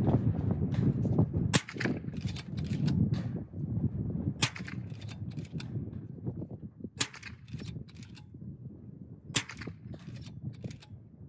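RTI Prophet .22 PCP air rifle firing four shots about two and a half seconds apart, each a sharp crack followed by a few quieter clicks. The lead-free pellets leave the muzzle at about 1210 fps, supersonic, so each shot carries a supersonic crack. A low rumble fills the first second and a half.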